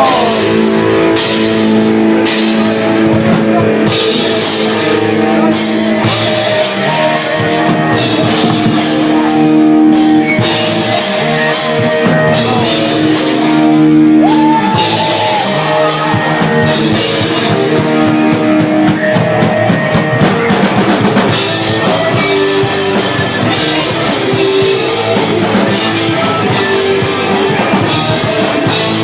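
Thrash metal band playing live in an instrumental passage: loud distorted electric guitars over bass and a drum kit with steady cymbal hits, without vocals.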